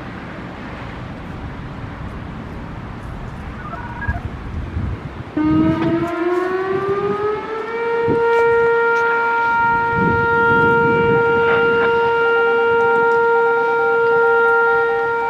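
Background traffic noise, broken about four seconds in by a brief activation tone from a radio scanner. A little after five seconds a Whelen Vortex R4 speaker siren starts its Alert signal: the pitch rises for about two seconds, then holds one loud, steady tone.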